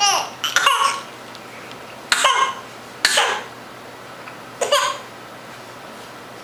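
A girl coughing: a run of short, sharp coughs, about five in all, coming in four spells a second or so apart.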